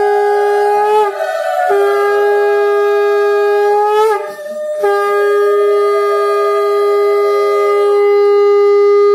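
Conch shell (shankha) blown in long, loud, steady blasts on one held note. The blasts break off briefly about a second in and again about four seconds in, each ending with a small upward flick in pitch.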